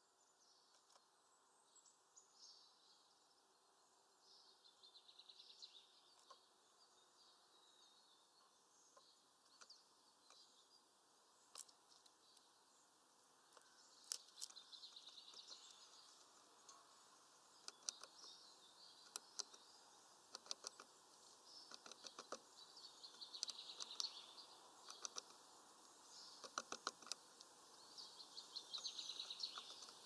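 Faint, sharp, irregular taps of a great tit hammering a sunflower seed with its bill on a wooden log perch, coming thick and fast in the second half, with the chirps and trills of other birds in the background.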